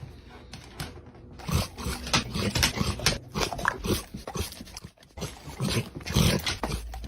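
A dog's sounds mixed with a busy run of sharp clicks and knocks, which get louder about a second and a half in.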